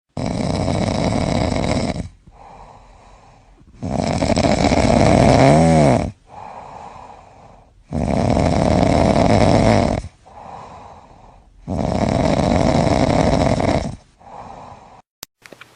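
A sleeping calf snoring: four loud snores about every four seconds, each followed by a quieter breath, with a brief click near the end.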